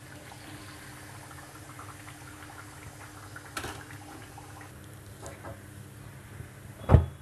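Fried urad dal vadas being taken out of hot oil and set in a mesh strainer: a low steady hum with a few light clicks of the spoon and vadas, and one loud thump near the end.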